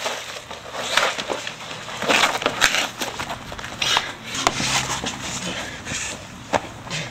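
Scuffling of two people wrestling on the ground: irregular bursts of rustling clothing and bodies scraping, with a few knocks.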